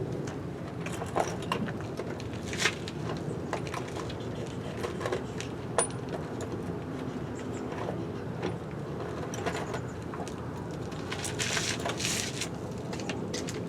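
Scattered light metallic clicks and knocks of small tools and parts being handled while screws and bolts are undone on an e-bike's rear motor wiring, with a short rustle about eleven seconds in.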